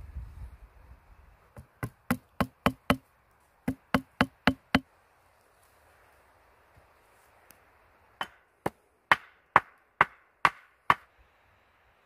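Wood knocking on wood: a small wooden wedge tapped into a notched joint between two branches to tighten it. About a dozen quick sharp knocks, then after a pause about seven more, brighter and ringing.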